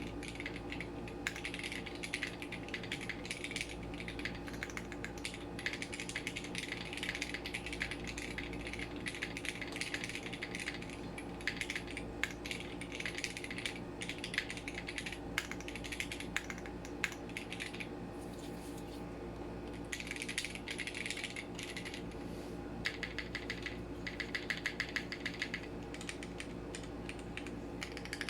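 Typing on a Matrix 6XV 3.0 Corsa custom mechanical keyboard with linear Cherry MX Red switches, an aluminium plate, no foam and GMK keycaps: a fast, continuous run of clacky keystrokes. The strokes thin out briefly about two-thirds of the way through. A faint steady hum lies underneath.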